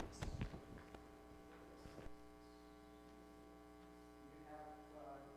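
Steady low electrical hum on the sound system, with a few soft knocks and rustles in the first two seconds as a clip-on microphone is brushed.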